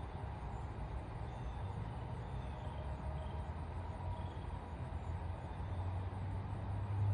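Outdoor ambience: a steady low rumble with faint, brief high chirps scattered through it.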